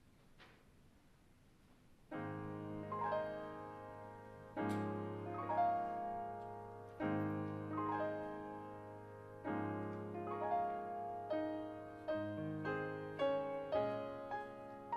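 Near silence for about two seconds, then slow piano music begins, with a chord struck every two to three seconds and quicker single notes between them toward the end.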